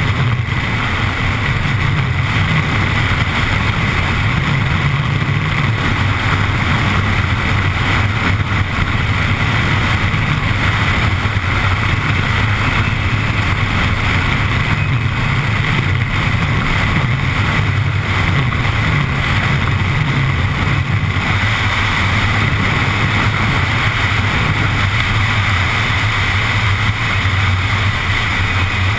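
Gravity racing cart (carrilana) rolling fast downhill on asphalt: a steady rush of wind on the microphone over the rumble of the wheels and chassis on the road.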